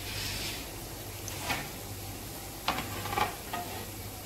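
Raw donut dough rings deep-frying in hot oil in a pan, a steady sizzle. A few sharper crackles come through around the middle and again about three seconds in.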